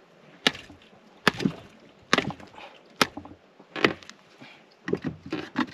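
A freshly landed Spanish mackerel knocking and slapping on the floor of a small inflatable boat: about seven sharp knocks, roughly one a second.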